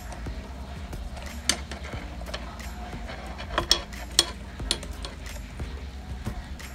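Scattered clicks and clinks of hand tools and plastic and metal parts being handled while a motorcycle turn signal light is worked on, the sharpest knocks coming in a cluster a little past the middle.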